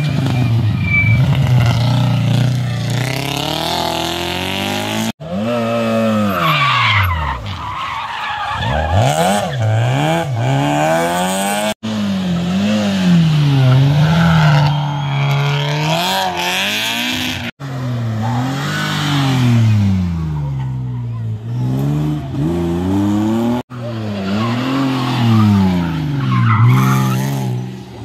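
Rally cars taken one after another through a tight bend, each engine revving hard and dropping through gear changes and lifts, with tyres skidding and squealing on the tarmac. The sound cuts off abruptly about every six seconds as one car gives way to the next.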